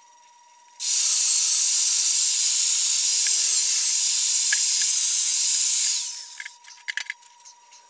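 A steady, even hiss that cuts in abruptly about a second in and fades away near the end, followed by a few light clicks.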